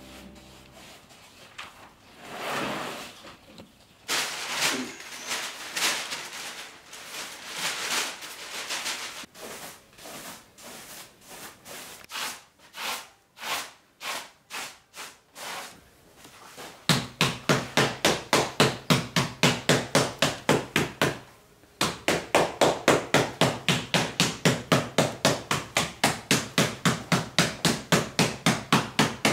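A stiff brush scrubbing and scraping over sheets of hanji paper laid on charcoal, in irregular strokes. About halfway through it switches to beating the paper in a fast, even rhythm of about four to five strikes a second, with one short break.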